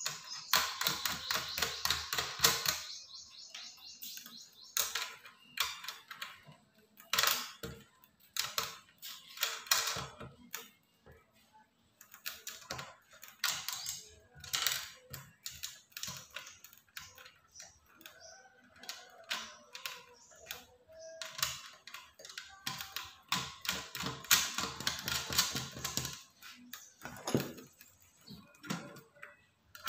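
Quick runs of small clicks and rattles from fastening the metal mounting bracket and its screws onto the antenna's plastic housing by hand. The clicks come thick for the first couple of seconds and again through much of the second half, with sparser ones in between.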